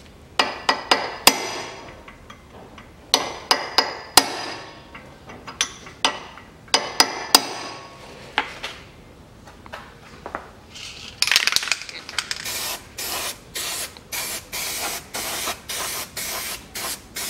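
Sharp metal clinks and taps of a hand tool on the front hub and axle nut as the cotter pin is fitted. About eleven seconds in, an aerosol spray can starts hissing in short repeated bursts, about two a second, coating the hub.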